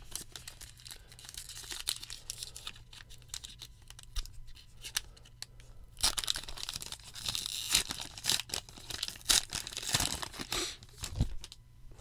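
A Topps Archives baseball card pack wrapper being torn open and crinkled, with small clicks and rustles of the cards being handled. The rustling grows denser about six seconds in and again around ten seconds.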